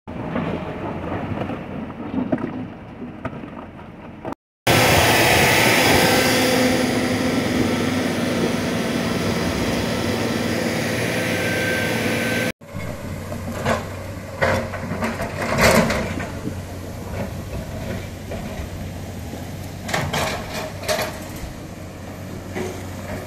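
Excavators working on rock debris: a steady low diesel hum with repeated clanks and scrapes of the bucket on stone through the second half. Before that comes a loud, steady rushing noise with a hum, which starts and stops abruptly.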